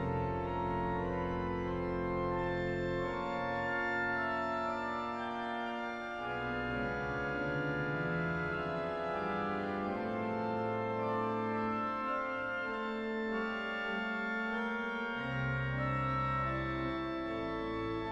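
Background organ music: sustained chords, with the low bass notes falling away for several seconds in the middle.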